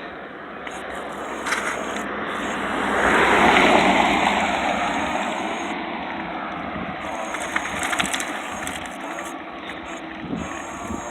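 Electric bicycle with a front hub motor being ridden on near-full throttle: a steady rush of tyre and riding noise that swells about three to four seconds in and then eases off.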